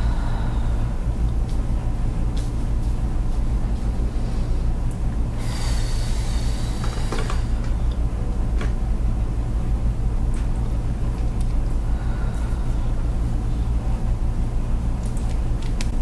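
A steady low hum, with a brief hiss a little over five seconds in that lasts under two seconds, and a few faint clicks.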